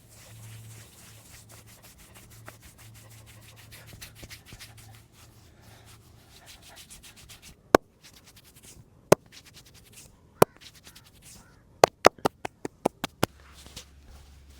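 Hands rubbing rapidly and rhythmically over skin in a fast, vigorous massage. This gives way to loud, sharp snaps: three single ones about a second apart, then a quick run of them near the end.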